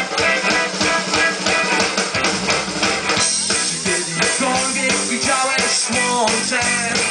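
Rock band playing live through a PA: electric guitars and drum kit in the song's instrumental intro. A steady drum beat opens up about three seconds in into a fuller sound with cymbals and a guitar melody.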